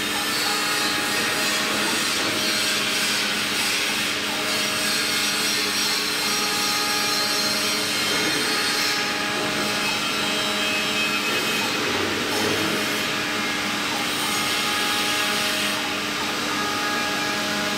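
5-axis mini CNC milling machine running: the spindle motor hums steadily under a continuous cutting or engraving noise, with small changes in the high hiss part-way through.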